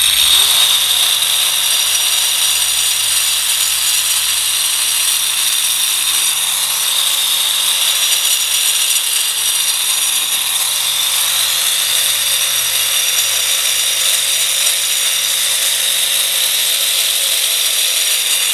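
Angle grinder with a segmented diamond blade cutting into a large masonry block. It is switched on at the very start, then gives a loud, steady, high-pitched grinding that holds without let-up.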